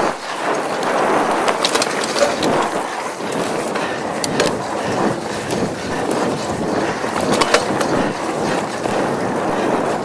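Mountain bike riding along a dirt forest track: a steady rolling rush from the tyres on the ground, with scattered sharp clicks and rattles from the bike over bumps.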